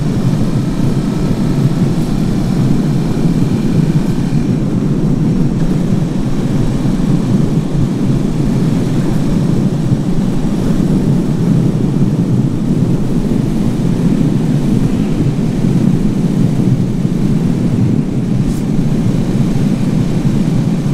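Suzuki DR 650's single-cylinder engine running under way, mixed with a dense rush of wind noise on the microphone. A faint rising tone sits over it in the first few seconds.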